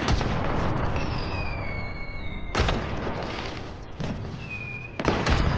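Dramatic soundtrack music with heavy booming hits, one about two and a half seconds in and another near the end, and high sliding tones falling in pitch between them.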